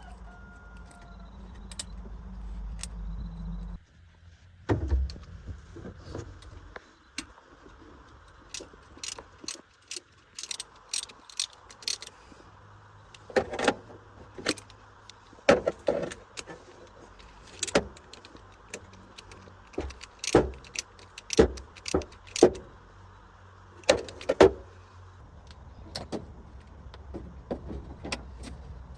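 Metal tools and parts clinking and knocking irregularly during car repair work. A low steady hum cuts off suddenly about four seconds in.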